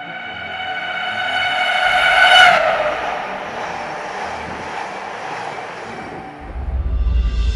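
Delhi–Meerut RRTS high-speed train passing: a high horn-like tone swells to a peak about two and a half seconds in, then drops in pitch as the train goes by. A rushing noise follows, and a deep rumble swells near the end.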